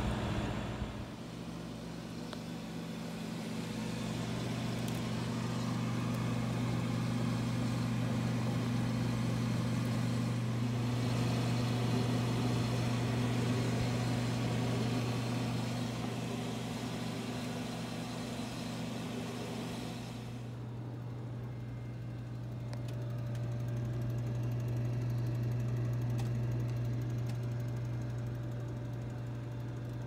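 A 1990 Hotpoint top-freezer refrigerator running: a steady low hum from the compressor and the whir of the condenser fan. The airy fan noise thins out about two-thirds of the way through, leaving the steady hum.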